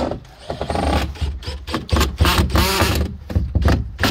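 Cordless drill running in short bursts as it drives screws into the coop's wooden wall panels, with knocks of wood and a low rumble throughout.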